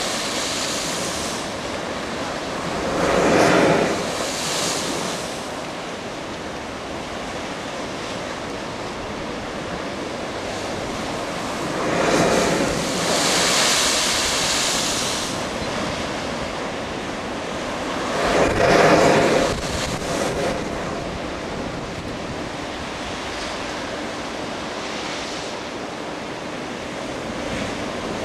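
Ocean surf washing over a lava-rock shoreline, with three big surges of breaking water about three, twelve and nineteen seconds in; the middle one is a long hissing rush as a blowhole spouts spray. Wind buffets the microphone throughout.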